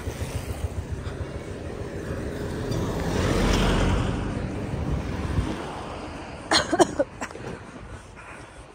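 A motor vehicle passing close by on the road, its noise swelling to a peak and fading away over a few seconds. Near the end come a few short, sharp pitched sounds.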